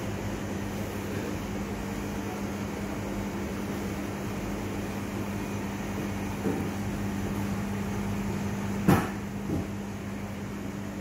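Steady low mechanical hum of a running machine. A sharp knock comes about nine seconds in, with fainter knocks shortly before and after it.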